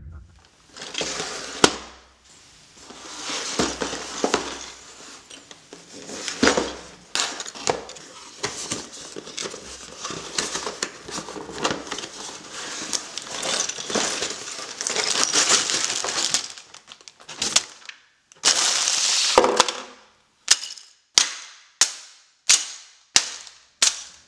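A LEGO set's cardboard box being opened and handled: scraping and rustling of cardboard and the crinkle of plastic parts bags. Near the end comes a quick run of about seven sharp taps, roughly half a second apart.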